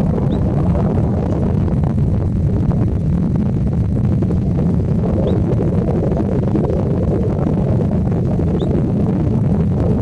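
Steady, loud low rumble of wind buffeting the microphone, with three faint short rising chirps high above it.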